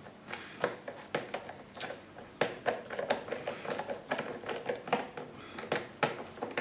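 Hand-turned 8 mm nut driver backing screws out of plastic threads in a lawn mower's plastic cover: a run of small, irregular clicks and creaks from the tool and the screw.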